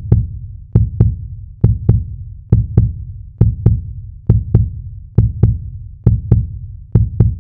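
A heartbeat sound effect: pairs of deep thumps, the two beats of each pair about a quarter second apart, repeating steadily at just over one pair a second.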